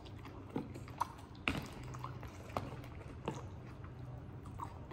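A person eating noodles: soft, wet chewing and mouth sounds, with about seven faint, short clicks of fork and spoon against food and plastic containers.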